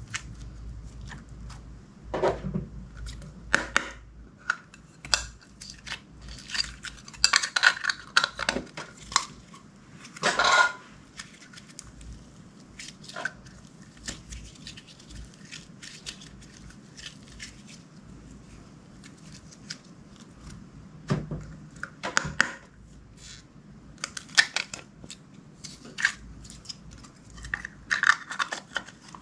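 Clear slime being handled and mixed: irregular sticky clicks and crackles in clusters, with a few sharper knocks.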